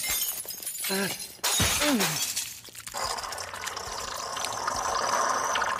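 Cartoon sound effects: glass lab flasks shattering at the start and again about a second and a half in, with a man's pained cries in between. From about three seconds on comes a steady wet rushing as thick liquid goo pours away down a drain.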